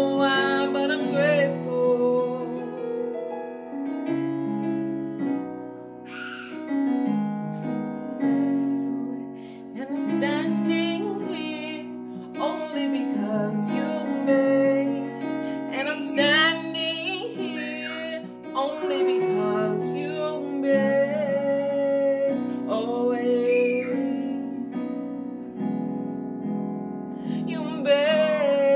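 A woman singing a worship song with vibrato and long held notes over sustained keyboard chords.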